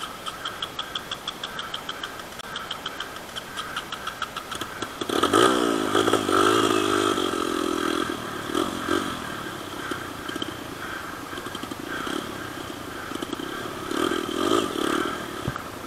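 Dirt bike engines running, one close by revving up and down from about five seconds in, with a steady higher engine note further off. The pitch swells again near the end.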